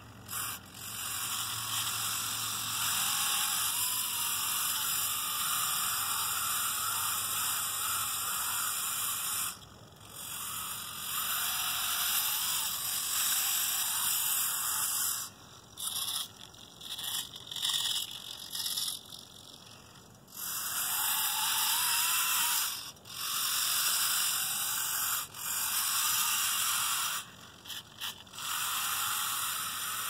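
Small electric motors and gears of a motorized toy Cat skid steer whirring with a high buzz as it drives in sand, the pitch wavering up and down. It stops and starts several times in the second half, with brief gaps between runs.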